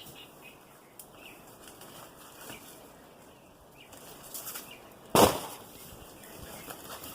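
Crackling and rustling of dry leaves and stalks being handled, with a few small clicks, then one heavy thump about five seconds in, as a cut piece of the fallen white bird of paradise is dropped.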